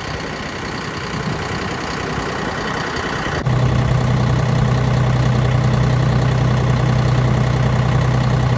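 Tractor engine idling steadily. About three and a half seconds in, it suddenly becomes louder, with a steady low hum.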